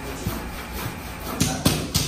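Three sharp knocks in quick succession in the second half, over a steady background hiss.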